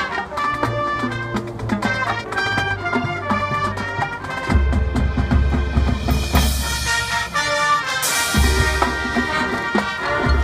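High school marching band playing its field show: brass with drums, deep bass notes coming in about halfway through, and cymbal crashes near the middle and again about two seconds later.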